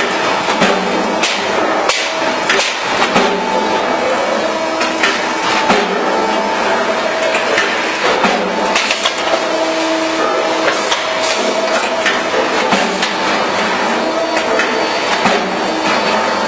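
Automatic sandpaper disc cutting machine running, with many quick, irregular knocks and clicks over a steady hum.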